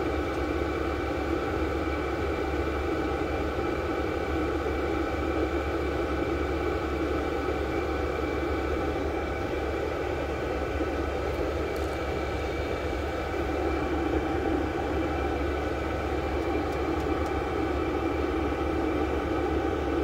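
VEVOR 8 kW 12 V diesel air heater running steadily: its blower fan and burner give an even, unchanging whir with a low hum and a few faint steady high tones.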